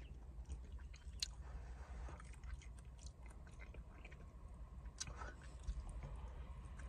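Close-up chewing of a mouthful of cooked purple cabbage and rutabaga, quiet wet mouth sounds with two sharper clicks, one about a second in and one about five seconds in, over a faint steady low rumble.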